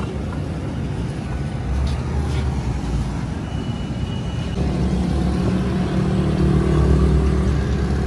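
An engine running steadily nearby, a low rumble that grows louder about halfway through.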